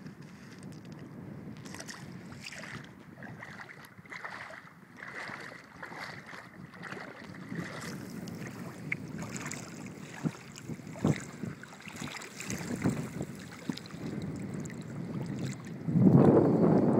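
Shallow river water sloshing and splashing around someone wading, with small knocks and wind on the microphone. A louder rush of noise comes in near the end.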